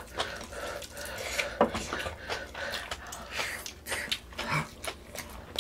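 Cutlery clinking and tapping against dishes in short, irregular clicks while pork-bone soup (gamja-tang) is eaten, with small eating noises between.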